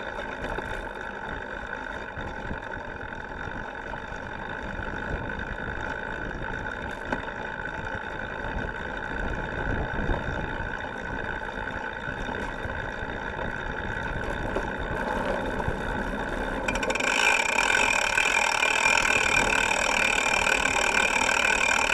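Cyclocross bike's rear freehub buzzing as the bike coasts, with the tyres rolling over grass and then gravel. The sound grows louder and brighter about three-quarters of the way through.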